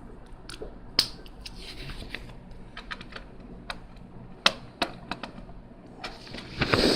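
Small plastic Lego pieces clicking and clattering as they are handled: a scattering of light, irregular clicks with a few sharper ones.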